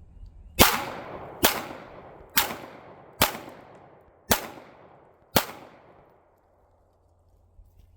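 Six 9mm pistol shots from a first-generation Smith & Wesson M&P 9, fired at about one a second in a timed drill, each sharp crack trailing off in a fading echo.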